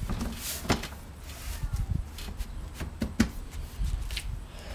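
A folding table knocking and sliding against plastic storage crates as it is pushed into an SUV's cargo area: a few sharp knocks, the loudest about three seconds in.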